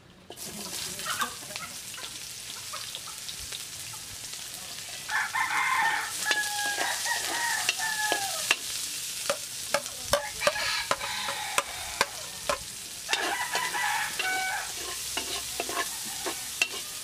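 Sliced onion and garlic sizzling in hot rendered pork fat in a steel wok, with a metal spatula clicking and scraping against the pan as it is stirred. A rooster crows twice in the background, about five seconds in and again about thirteen seconds in.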